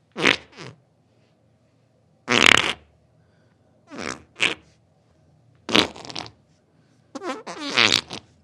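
A series of five separate farts, each short, some doubled, a couple with a wobbling, fluttering pitch, with short silences between them.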